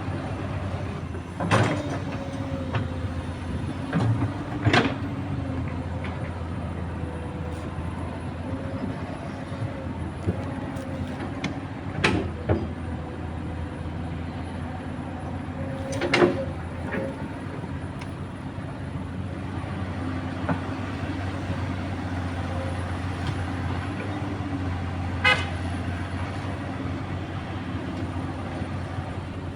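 Komatsu PC200 hydraulic excavator working: a steady diesel engine drone with a hydraulic whine, broken every few seconds by sharp clanks as the bucket digs and dumps.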